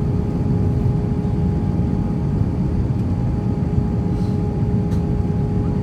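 Cabin noise of an Airbus A319-131 on its descent to land, heard from a window seat over the wing: a steady rumble of airflow and the IAE V2500 engines, with a held hum on top.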